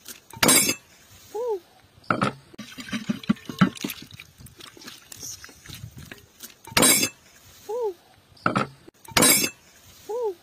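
Cooked duck pieces and broth tipped from a clay pot onto a glass platter, with several loud clinks and splatters as the pot and meat hit the dish. A short rising-and-falling call is heard three times in between.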